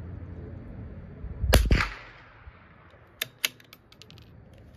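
A single .22 LR rifle shot about a second and a half in, with a short ringing tail, then the bolt being worked about two seconds later: two sharp metallic clicks followed by a few lighter ones.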